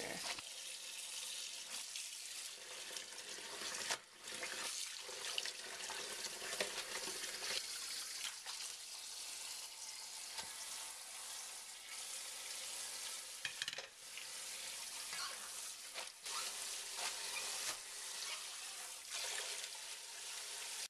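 Cold tap water running onto salted napa cabbage in a stainless steel bowl while hands toss the leaves to rinse the salt off, a steady splashing hiss with a couple of brief breaks.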